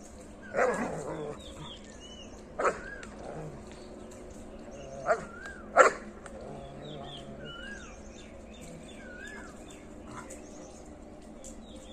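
German shepherd dog barking four short, sharp times, the loudest about six seconds in. Faint bird whistles come in between the barks.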